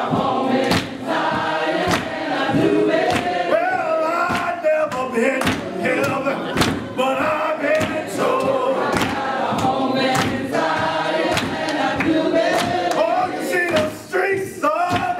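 Gospel singing by a group of voices in church, with sharp hits keeping a steady beat about once a second.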